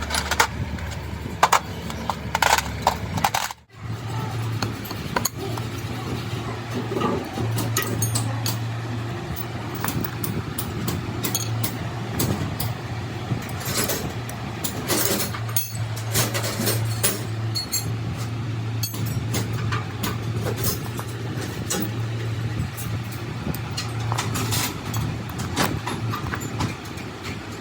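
Steady low machine hum with frequent metal clinks and knocks of work being done. The sound cuts out for an instant about three and a half seconds in and comes back with the hum a little higher in pitch.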